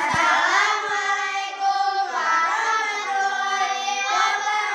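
A group of children's voices in unison, singing or chanting with long drawn-out notes.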